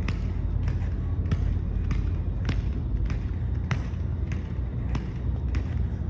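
Short, sharp taps repeating evenly, about ten in six seconds, over a steady low rumble.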